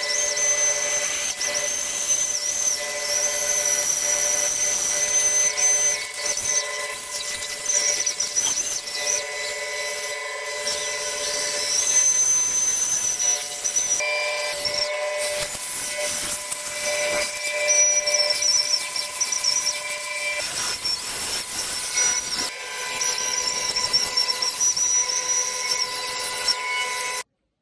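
Power tool running on wood with a steady high whine and changing pitch, cutting off suddenly near the end.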